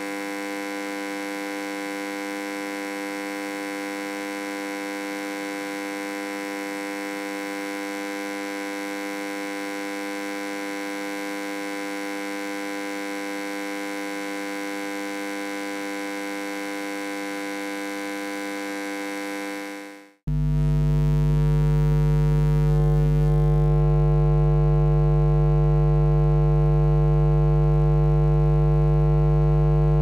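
Electrical hum sound effect: a steady buzzing hum with many overtones that fades out about two-thirds of the way through, followed at once by a second, louder and deeper electrical hum that holds steady.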